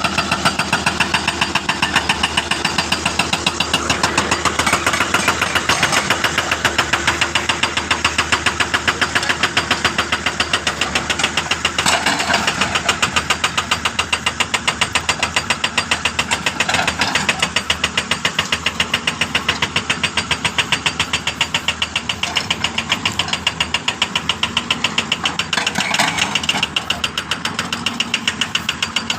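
Hitachi jackhammer hammering without a break, rapid even blows several times a second over a running engine.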